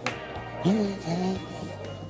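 Background music with a steady bass line; a pitched voice rises and holds a note briefly near the middle.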